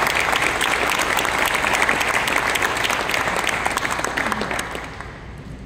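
Audience applauding, a dense clatter of many hands that dies away near the end.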